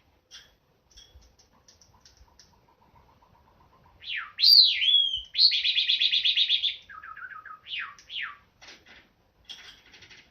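Cinnamon Java sparrow singing. It starts with soft clicks and a quiet run of low, evenly repeated notes. About four seconds in it turns loud with swooping whistles and a fast trill, then a few lower quick notes and two sweeping notes, and ends in clicks.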